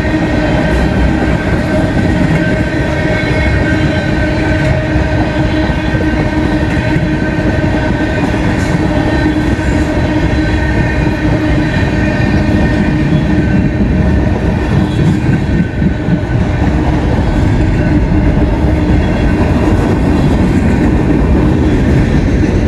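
CSX freight train of tank cars and boxcars rolling past close by: steady wheel and rail noise with rhythmic clatter over the rail joints, and steady tones running through it.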